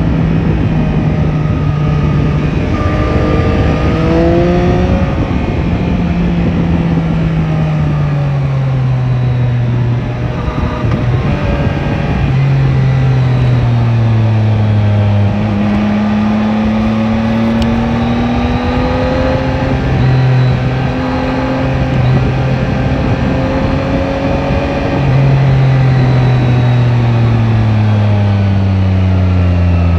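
Yamaha Tracer 9 GT's 890 cc inline-three engine running under way, its pitch climbing and falling again and again as the bike accelerates and eases off.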